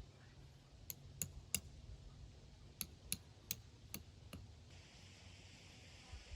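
Eight short, sharp clicks in two runs, three and then five, about a third of a second apart, over a low steady rumble; a faint steady hiss comes in about three-quarters of the way through.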